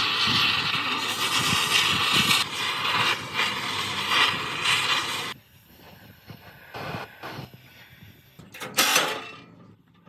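A loud power tool running with a harsh, hissing noise, cutting off suddenly about five seconds in; a few light knocks follow.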